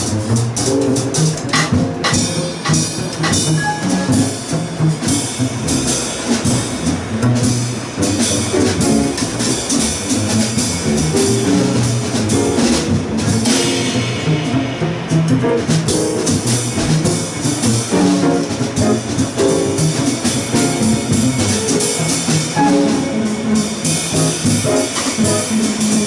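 Live small-group jazz from the rhythm section: grand piano, upright double bass and drum kit, with cymbal wash swelling around the middle. The saxophones are not playing.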